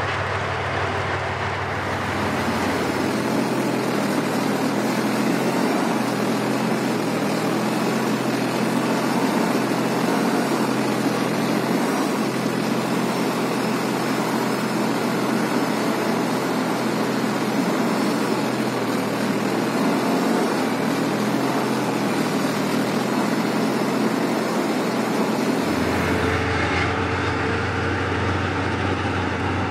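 Soviet T-55 tank's V-55 V-12 diesel engine running steadily as the tank drives on its tracks over dirt. At first and again near the end it is heard from beside the tank with a deep low rumble. In between it is heard from on top of the hull, where the deepest rumble drops away.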